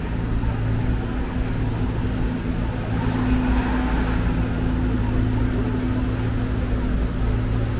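Steady low hum of an idling engine over the general noise of a city street.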